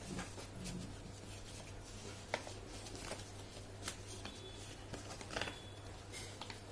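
A sheet of paper being folded and creased by hand on a plastic chair seat: faint rubbing and rustling, with a few short sharp taps, over a steady low hum.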